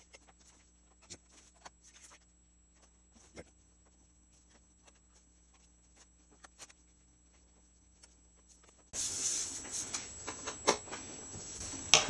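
Small screwdriver and screws on a MacBook Pro's aluminium bottom cover: faint scattered clicks and ticks as the cover screws are driven in. About three-quarters through, a louder rustling handling noise starts, with a few knocks.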